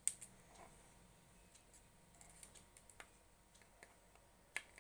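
Faint handling sounds of string and a paper craft bird while a knot is tied: a few scattered clicks and taps over near silence, the sharpest right at the start and another near the end.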